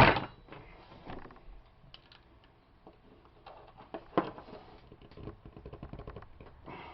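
A tool working at a stubborn screw in a brass door handle: scattered small clicks and taps of metal on metal, with a louder click about four seconds in and quicker clicking near the end.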